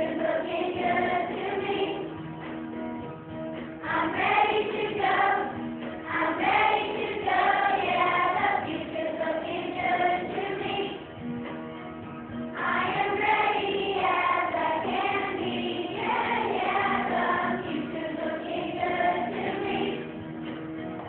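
A class of fifth-grade children singing their farewell song together as a choir, in phrases that swell and ease off every few seconds.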